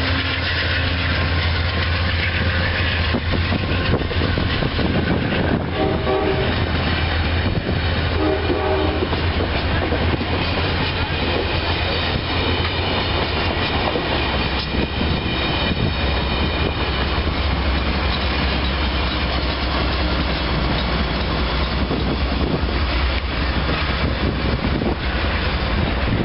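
Amtrak GE Genesis diesel-electric locomotive and its passenger cars passing at speed: a steady diesel drone under the rumble and clatter of wheels on the rails, with two short horn notes about six and eight seconds in.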